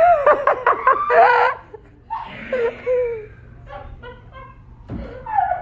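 People laughing hard in high, breathy bursts, loudest in the first second and a half, then trailing into quieter, shorter giggles.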